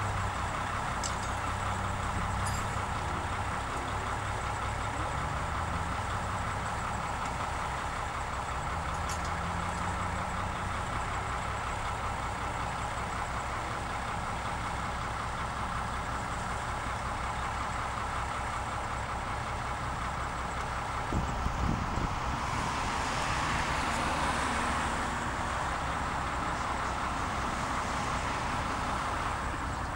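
Road vehicle engines idling steadily, with a few low thumps and then a vehicle passing on the wet road about three quarters of the way in.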